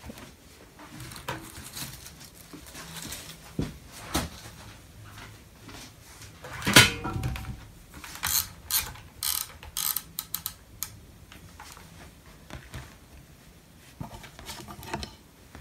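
A plastic ironing ruler and fabric being handled on an ironing board while a fabric edge is folded over: scattered clicks and rustles, with a louder knock about seven seconds in and a quick run of sharp clicks just after it.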